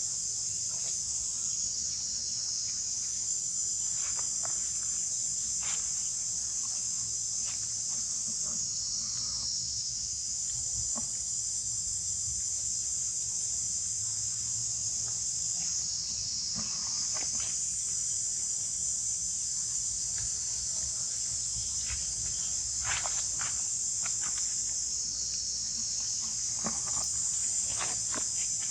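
Steady high-pitched chorus of insects that dips and swells slightly every several seconds. Scattered faint clicks and rustles sound over it.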